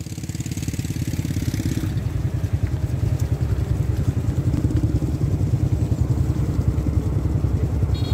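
Small motorbike engine idling with a steady, fast low putter.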